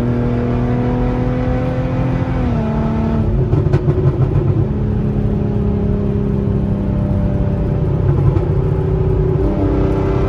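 2016 Hyundai Genesis Coupe 3.8 V6 with test pipes, its exhaust and engine note rising slowly under light acceleration. The pitch steps down about two and a half seconds in and again near the end as the automatic transmission upshifts.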